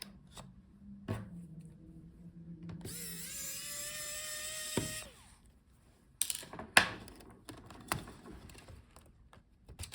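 Small electric screwdriver whining for about two seconds, its pitch rising a little as it spins up while driving out the screws of a laptop cooling fan. A few sharp clicks of small parts follow.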